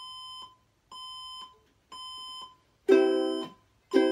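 Three steady electronic beeps, one a second, each about half a second long. Then, about three seconds in, a ukulele strummed in time with them, one chord a second, each chord ringing and fading.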